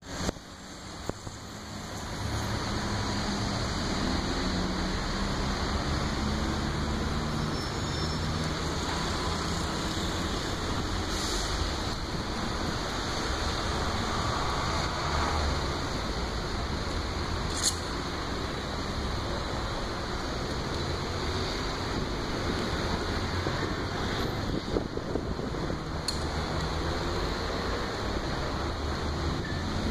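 City street traffic noise: car engines running and passing in a steady rumble, with a couple of sharp clicks partway through.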